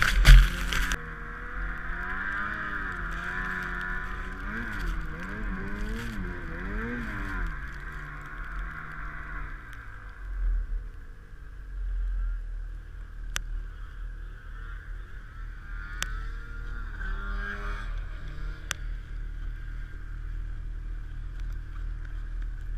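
A loud knock in the first second, then a snowmobile engine revving up and down in repeated bursts while the sled bogs down in deep powder snow. After about eight seconds it settles to a low, steady idle, with a few sharp clicks later.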